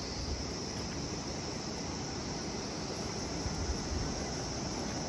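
Insects droning steadily in a high, even buzz, over a low uneven rumble.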